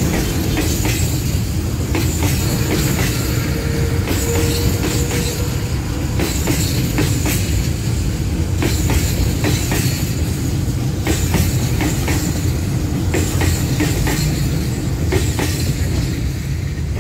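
Container freight train rolling past close by: a steady heavy rumble of wagons, with wheels clacking irregularly over the rail joints and a brief faint squeal about four seconds in. The sound eases slightly near the end as the last wagon clears the crossing.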